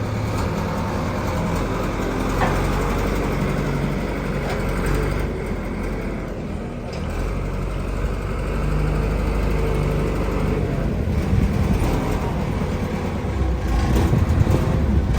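A large engine running steadily, its pitch shifting slightly now and then.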